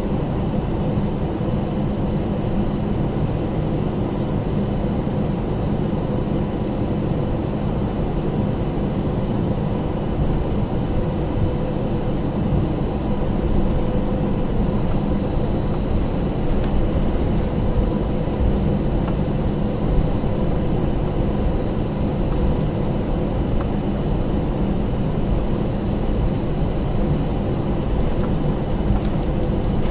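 Cabin noise inside an Airbus A321-231 taxiing with its IAE V2500 turbofans at low power: a steady low rumble with a constant hum.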